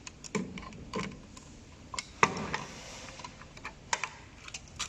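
Irregular light clicks and knocks of small hard parts being handled, with one sharper knock about two seconds in.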